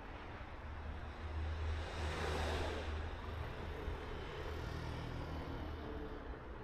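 A motor vehicle passing close by: a low engine hum with a rushing swell that peaks about two and a half seconds in, then fades.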